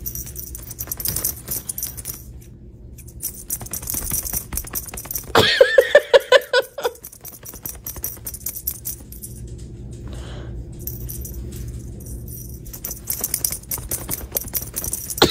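Small bell on a wand toy jingling and rattling in quick, uneven shakes as a kitten bats at it. About five seconds in there is a louder pulsing voice-like sound lasting a second and a half.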